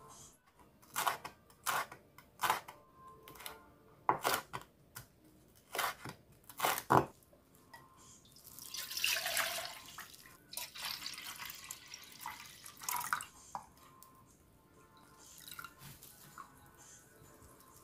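A kitchen knife chops through minari stems onto a wooden cutting board in a run of separate, uneven strokes. Then soy sauce is poured into a plastic measuring jug in a stream lasting about two seconds, and later more liquid is poured in more faintly.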